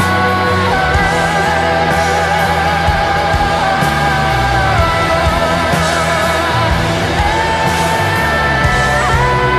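Live rock band playing, with a woman singing long held notes with vibrato over electric guitar, drums and keyboards; the sung note drops about a second in and climbs again in the last few seconds.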